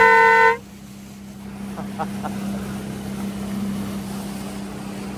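A boat's horn gives one short toot of about half a second. A quieter steady hum of the outboard motor follows, with water and wind noise.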